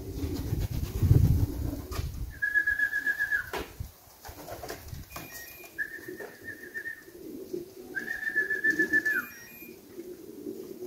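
Three long, level whistle calls with a slight warble, each about a second long and dipping at the end, used to call racing pigeons down to the loft. Pigeons coo low in the background, and there is a low rumble in the first two seconds.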